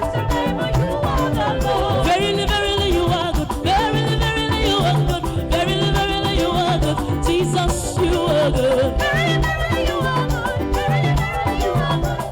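Upbeat live church band music for dancing, with drums, a repeating bass line and melodic lines over them.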